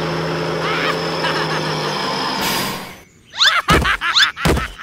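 A steady motor-hum sound effect for a toy tractor runs for about two seconds and ends in a whoosh. Then come quick rising-and-falling cartoon squeaks with two heavy thuds.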